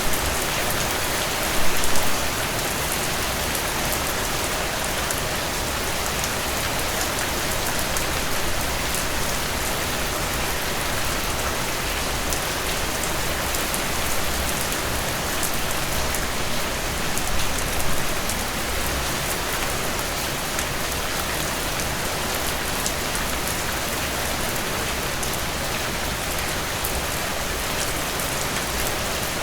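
Heavy rain falling steadily with no thunder, an even hiss of drops on surfaces. There are two brief louder swells, about two seconds in and just past the middle.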